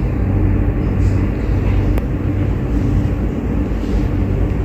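Steady mechanical hum with a faint click about two seconds in.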